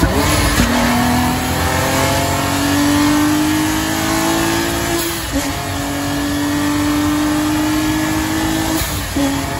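Porsche Cayman flat-six with an MRN twin-turbo kit, accelerating under load: the engine note climbs steadily, drops at an upshift about five seconds in, climbs again and drops at another shift near the end.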